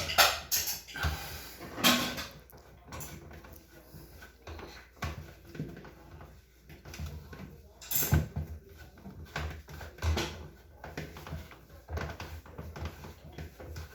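Irregular clicks and knocks of a refrigerator fan assembly being handled and fitted back into its housing. The loudest knocks come just after the start, about two seconds in and about eight seconds in.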